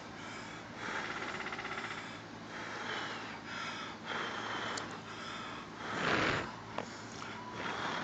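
A person blowing on a smouldering chaga ember held in the hand, in a series of long breaths that feed it air and bring it to a red glow; the strongest breath comes about six seconds in.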